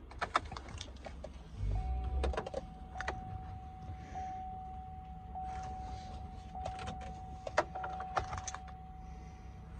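Inside a GMC Yukon XL's cab: a low thump about two seconds in, then a single steady electronic warning tone that carries on among light clicks and key jingling, the moments just before the cold engine is cranked.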